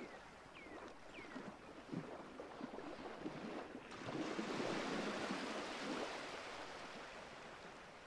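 Sea surf washing onto a sandy, pebbly beach: a steady hiss of water, with a wave breaking and rushing in about four seconds in, then slowly dying away. Three short falling chirps sound in the first second and a half.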